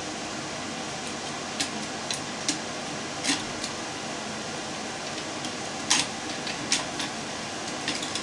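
Scattered sharp clicks and snips of hand tools as the old power cord is taken off a hot tub pump motor, over a steady background hiss.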